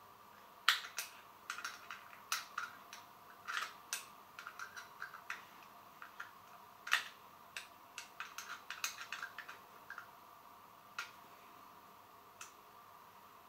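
Irregular sharp clicks of a pole chainsaw's chain links rattling against the guide bar as the chain is worked around it by hand to seat it on the bar and sprocket. The clicks come thick and fast at first, then only twice more near the end.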